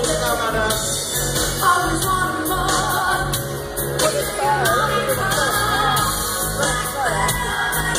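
Loud pop music with a sung vocal line over a steady beat, played over a club sound system.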